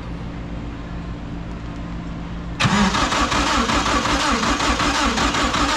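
Four-cylinder Honda race engine cranking on its starter without firing, starting about two and a half seconds in, after a steady low hum. The ECU reads no cam sensor signal, so the engine cranks but won't run.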